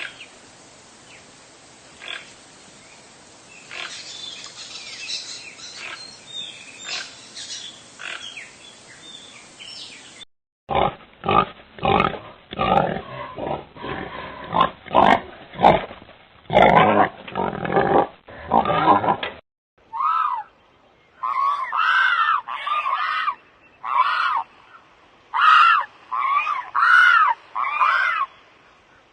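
A run of different animal calls, one after another: faint high chirping first, then loud, rhythmic grunting calls, then a series of short, high calls that rise and fall in pitch.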